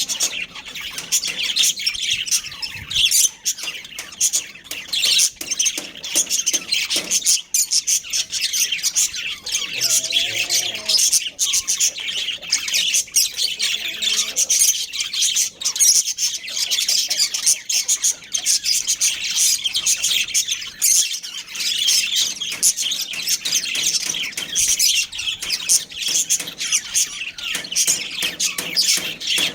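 Budgerigars chirping and chattering continuously, several birds calling over one another with quick high chirps and squawks.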